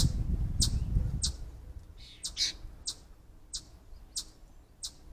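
A bird calling with short, high, sharp notes repeated about every two-thirds of a second, with a couple of longer, fuller calls mixed in. A low rumble fades out about a second and a half in.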